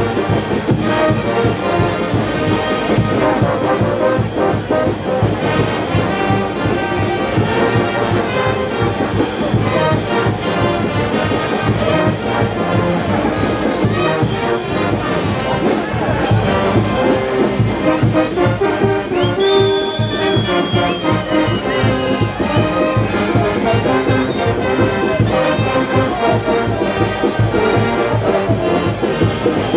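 Brass band of trumpets and trombones playing with a steady drum beat.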